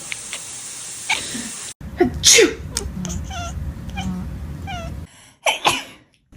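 A person sneezes loudly, then a cat answers with a string of short, chirping meows. After a cut come two more sharp sneezes in quick succession.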